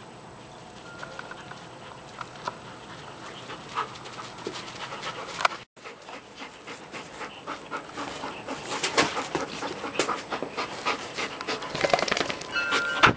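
Two giant schnauzer puppies panting and scuffling as they play with a Jolly Ball, with many sharp clicks and knocks that grow thicker and louder in the second half. The sound cuts out for a moment a little before halfway.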